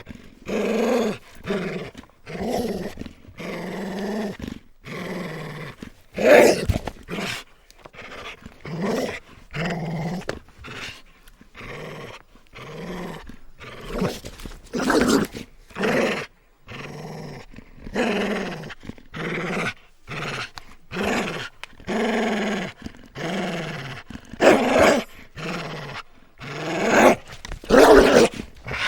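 A dog barking over and over, about one call a second, with a few much louder barks in between.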